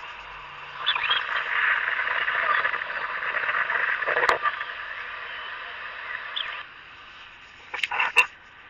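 A dense chorus of frogs croaking, which stops abruptly about six and a half seconds in. There is a sharp click midway and two more clicks near the end.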